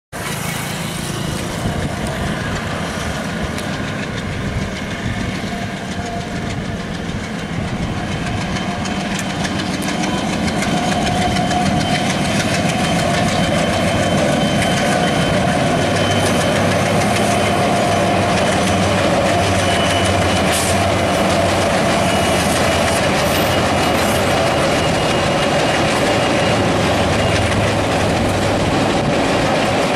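ALCO diesel locomotive engine chugging hard with a pulsing beat as it hauls a passenger train, getting louder about ten seconds in as the train draws near. The coaches' wheels clatter over the rail joints as they cross a girder bridge.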